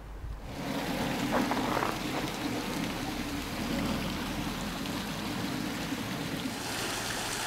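Steady rushing of running water, starting about half a second in and turning brighter and hissier near the end.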